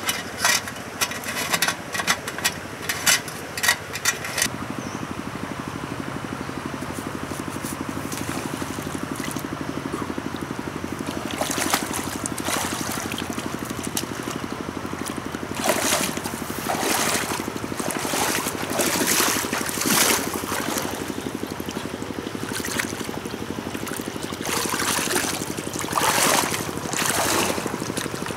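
Small gasoline engine of a portable water pump running steadily. A quick run of clicks and knocks fills the first four seconds, and bursts of splashing water come at intervals later on.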